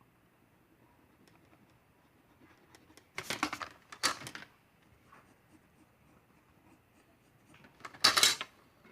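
Scratchy strokes on sketchbook paper as a drawing is reworked: three short spells, about three seconds, four seconds and eight seconds in, with faint room hum between.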